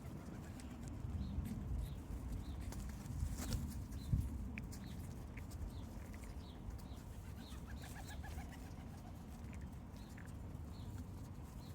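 Pigeons calling while they feed, over a steady low rumble, with short high chirps repeating throughout and a few sharp clicks about three and a half seconds in.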